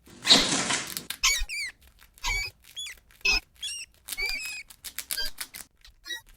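Rat squeaking: a run of short, high squeaks, some sliding up and down in pitch, after a brief hiss-like noisy burst in the first second.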